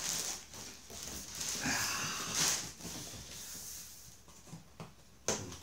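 Plastic mailer bag rustling and crinkling as a cardboard box is pulled out of it and set down, with a sharp tap near the end.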